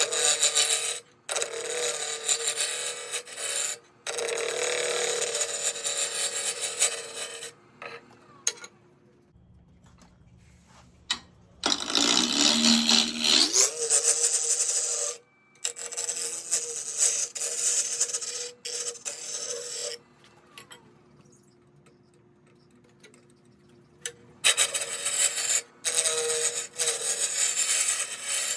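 A turning gouge cuts a square goncalo alves (tigerwood) blank spinning on a wood lathe, roughing it toward a cylinder. The scraping cuts come in stretches with short pauses between them, over a steady lathe hum. A rising whine sounds about twelve seconds in.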